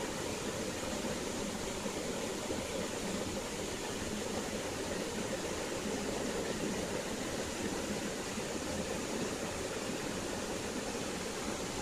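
Steady rushing noise of a flowing stream, even and unchanging.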